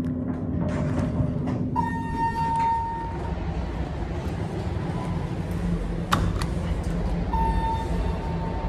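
Elevator signal tones: a steady electronic beep about two seconds in that lasts just over a second, and a second long beep starting near the end. Under them runs a steady low rumble, with one sharp click about six seconds in.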